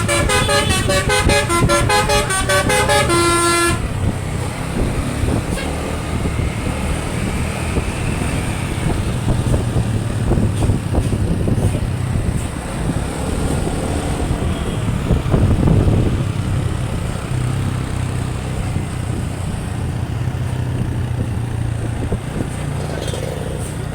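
A tour bus's basuri telolet horn plays a quick run of stepped musical notes and cuts off about three and a half seconds in. After that the bus's engine runs with a steady low hum, mixed with street noise.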